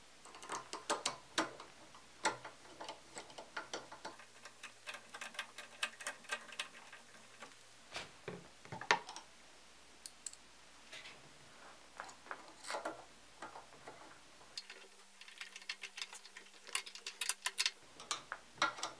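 Small screwdriver driving the bolts that hold an aluminium focuser plate onto a Schmidt-Cassegrain telescope's rear cell: irregular runs of light metal clicks and ticks as the tip seats in the screw heads and the screws turn.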